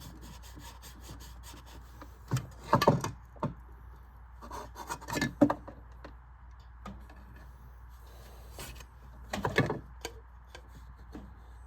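Three short bursts of scraping and rubbing, a few seconds apart, as a stuck fan blade is worked and twisted on its motor shaft to get it off.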